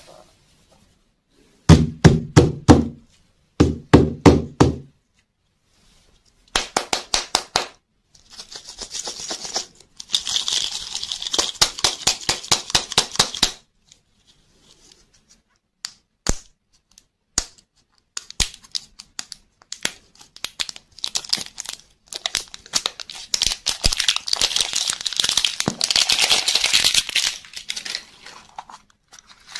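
Fingers tapping rapidly on hollow plastic lollipop balls in two short runs of knocks, then a long stretch of crinkling and tearing as the shiny plastic wrapper is peeled off a ball-shaped toy-surprise lollipop, with fast clicks and crackles from the plastic capsule being handled and opened.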